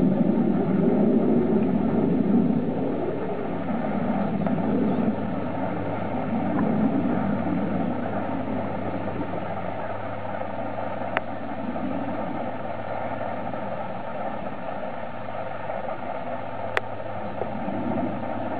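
Bulldozers' diesel engines running with a steady low rumble. It is louder for the first few seconds, then gradually fainter, with two brief clicks in the second half.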